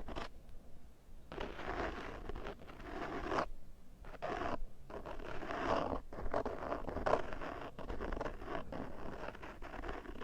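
A screwdriver scraped close-up for ASMR in a series of scratchy strokes, with short pauses between them.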